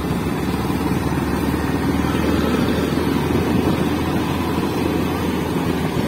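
Motorcycle engine running steadily while being ridden, mixed with road noise.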